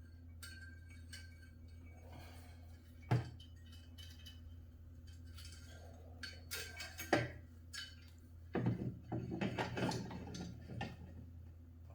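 Exercise-bike parts and hardware being handled during assembly: light clicks, a sharp knock about three seconds in, another near seven seconds, then a run of clinking and rattling near the end, over a steady low hum.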